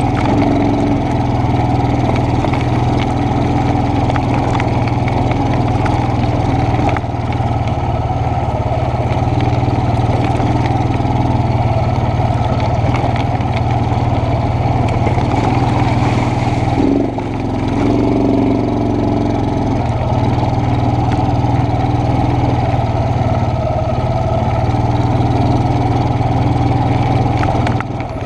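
ATV engine running steadily under a rider on a dirt trail. The engine note drops briefly about seven seconds in and again about seventeen seconds in.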